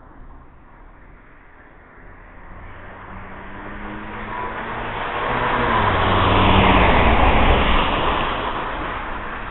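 A motor vehicle passing by on the street: its engine and tyre noise swell over several seconds, are loudest about seven seconds in, then fade away, the engine note dropping in pitch as it goes by.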